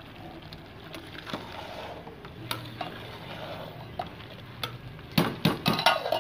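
Slotted steel spoon stirring and scraping rice and chickpeas in an aluminium pot, over a steady low hiss from the hot pot. Near the end comes a quick run of loud metal clinks as the spoon knocks against the pot and its lid, which is going on for the rice to steam.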